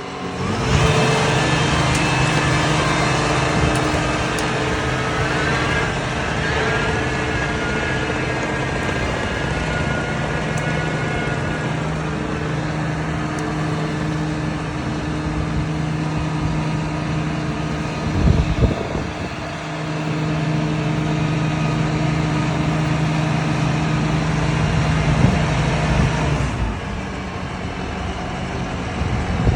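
Yanmar combine harvester running steadily, its diesel engine and working machinery giving a constant low hum under a broad mechanical rush. The noise dips briefly about two-thirds of the way through, and the upper hiss eases near the end.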